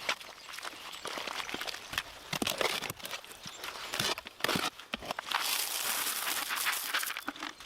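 Irregular rustling and crunching with scattered light knocks and clicks, thickening into a denser stretch of rustling or scraping about two thirds of the way through.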